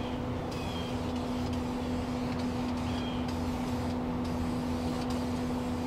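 A steady engine-like hum: one low tone with a fainter higher one above it, over a low rumble. A few short, faint high chirps come and go.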